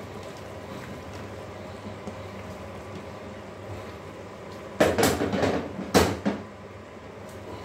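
A short clatter of kitchenware being handled about five seconds in, followed a second later by a single sharp knock, over a steady low kitchen background.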